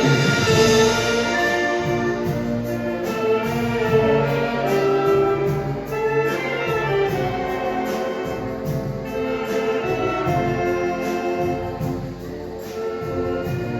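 Marching showband playing a Manila Sound pop medley, with brass carrying the melody over a steady drum beat.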